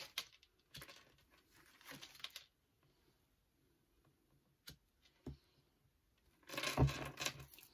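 Tarot cards handled on a table: a few soft rustles and slides of cards, two light taps, then a louder stretch of card rustling near the end.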